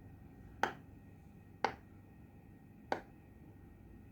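Silicone bubbles of a Pop It fidget toy being pressed through one at a time, three sharp pops about a second apart.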